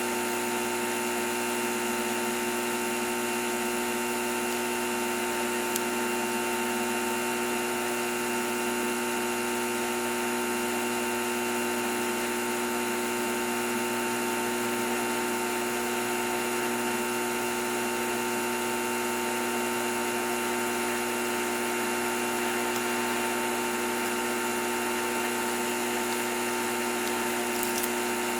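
Steady whirring hum of a small running motor, holding several fixed pitches without change; a faint tick about six seconds in.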